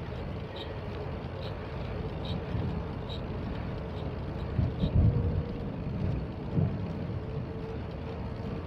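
Wind rumbling on the microphone of a moving bicycle, with a faint steady tone underneath and stronger buffets about five seconds in.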